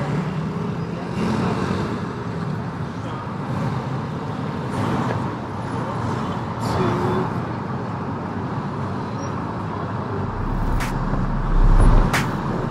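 City street traffic: a steady noise of cars and road traffic with voices in it. Near the end, music with a deep bass and sharp hits comes in.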